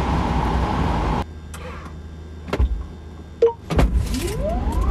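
Steady rush of wind and road noise from the car, cut off abruptly about a second in. Then a few sharp clicks, and near the end a whine rising in pitch.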